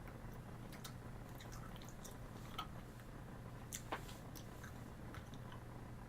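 Faint scattered small clicks and ticks over a steady low hum, about a dozen in all, the sharpest a little before and after the four-second mark.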